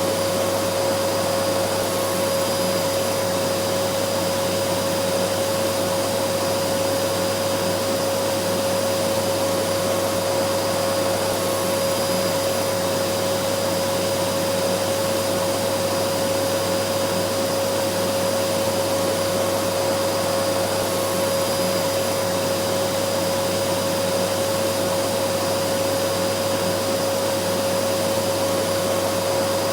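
Vacuum cleaner motor running steadily: a constant rushing noise with a steady hum-like whine.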